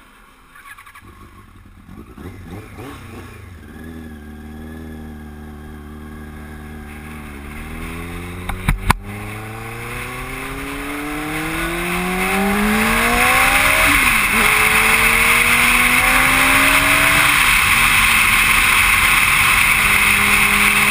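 Yamaha R1's inline-four engine pulling away and accelerating, its pitch climbing through the gears with two upshifts in the second half. Wind noise builds as speed rises, and there are two sharp knocks a little under halfway through.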